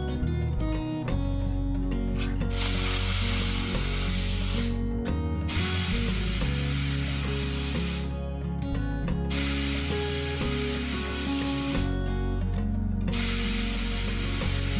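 Pressure cooker whistling four times, each whistle a hiss of escaping steam about two and a half seconds long, with short pauses between.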